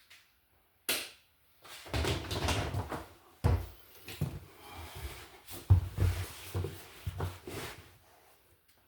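Handling noise from hands working with wires and tools: a sharp click about a second in, then irregular knocks, rubs and rustles.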